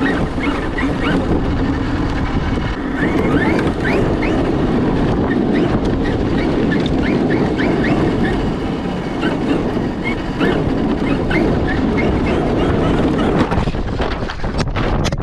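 Traxxas X-Maxx 8S electric RC monster truck running, a steady loud rumble with many short chirps over it, with wind on the microphone. A quick run of sharp clicks comes near the end.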